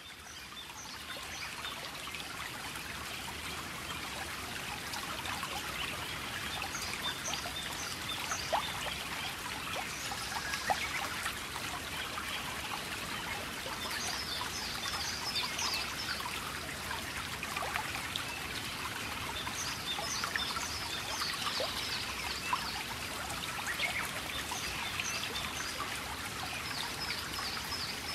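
Running water of a stream trickling steadily, with short runs of rapid, high bird chirps every several seconds.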